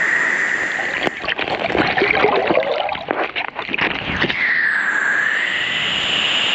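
Steady rush of river water, interrupted for about three seconds in the middle by irregular splashing and gurgling.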